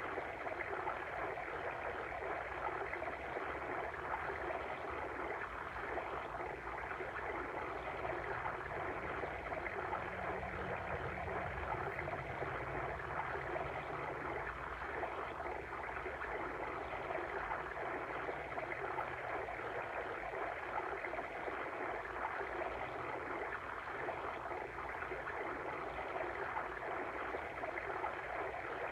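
Steady rushing and babbling of a flowing water stream.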